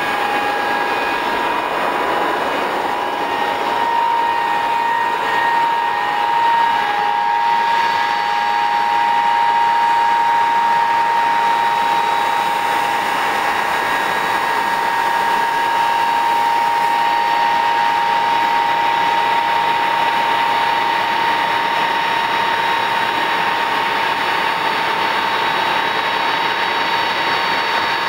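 Four Soloviev D-30KU rear-mounted turbofan engines of an Ilyushin Il-62M running at taxi power after landing. They give a steady high whine over a broad rush of jet noise, swelling slightly a few seconds in.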